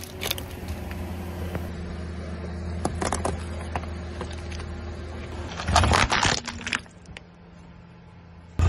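Car engine idling with a steady low hum while the tyre rolls over objects on asphalt, with a short burst of crunching and crackling about six seconds in as something is crushed under the tyre.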